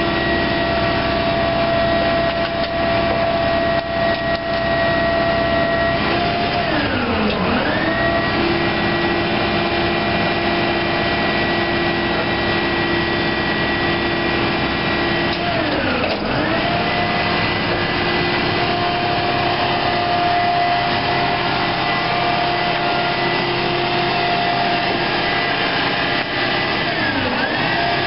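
Rear-loading garbage truck's engine held at high revs to drive the hydraulic packer, a steady whine from engine and pump while the Leach 2R-II packer panel compacts furniture in the hopper. Three times the pitch drops sharply and climbs back within a second or two as the packer cycle loads the engine.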